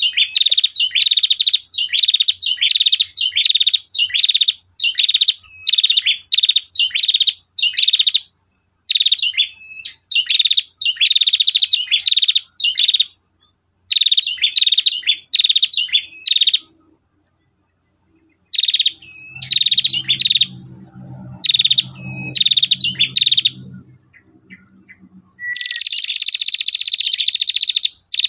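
Female prinia (prenjak) calling with its rapid, buzzing 'tir' trills, given in short repeated bursts. After a brief pause partway through, it breaks into one long unbroken trill near the end.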